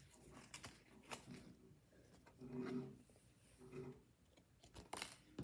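Near silence with soft handling of trading cards: a few faint clicks and rustles as cards are slid from the back of the stack to the front, the sharpest near the end. A faint voice murmurs briefly twice in the background.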